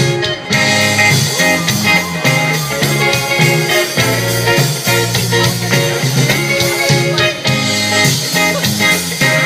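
Live rock band playing an instrumental passage through the PA: electric guitars over bass and drums, heard from within the audience.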